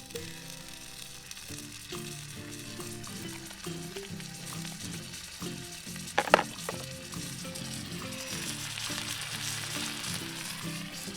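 Food sizzling as it fries, with a steady hiss that swells in the second half and one sharp clank about six seconds in. Background music plays throughout.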